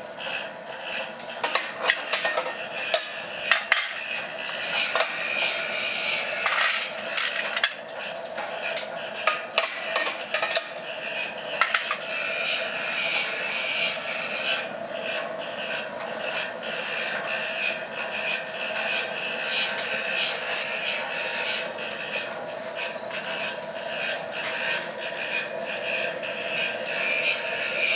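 Small DC blower fan under a wood pellet burner whirring steadily, running slowly on a reduced 6-volt supply. Over roughly the first dozen seconds, wood pellets scrape and rattle as they are tipped into the burner.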